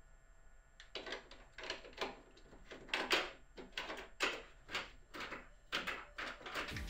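Irregular scrapes and knocks, about a dozen, from a replacement power side mirror's plastic housing being fitted against a pickup's door frame.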